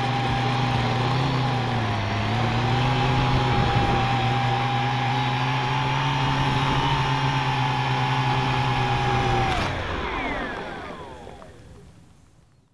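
Quadcopter's four brushless motors and 10-inch propellers running with a steady multi-pitched buzz, dipping briefly about two seconds in. About three-quarters of the way through, the pitch slides down as the motors spin down after landing and the sound dies away.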